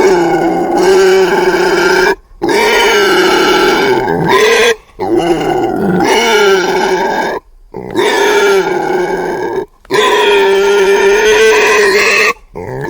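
Deinonychus dinosaur sound effect: a run of five deep, pitched calls, each about two seconds long with short breaks between them, and a sixth starting near the end.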